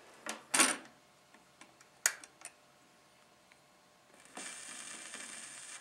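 Record player being handled: a few clicks and knocks as a vinyl record is set on the platter and the tonearm is moved. From about four seconds in, the stylus rides the lead-in groove with a steady surface hiss.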